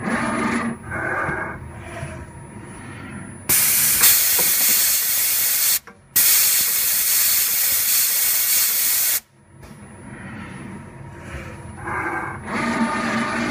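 An NC18 CNC tool grinder running its automatic cycle. The axis drives whine as the workhead moves and turns. Two loud bursts of hissing follow, about two and three seconds long with a brief break between them, and then the motor whine returns and grows near the end.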